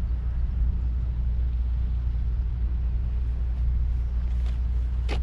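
Steady low rumble with a sharp click near the end.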